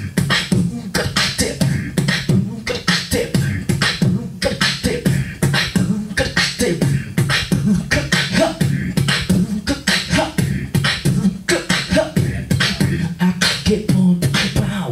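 Solo beatboxing into a handheld microphone: a fast, steady run of mouth-made drum hits over a continuous low bass.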